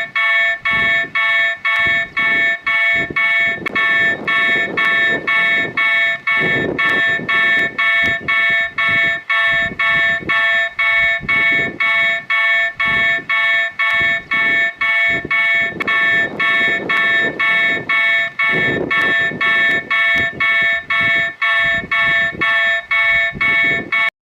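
Argentine railway level-crossing warning bell ringing steadily, about two strokes a second, then cutting off suddenly near the end.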